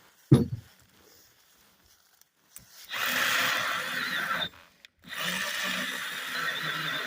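A sharp thump, then a pause. About three seconds in, a Milwaukee Hatchet one-handed battery mini chainsaw starts cutting a small log of oak with a steady whine. It cuts out briefly a couple of seconds later and starts cutting again.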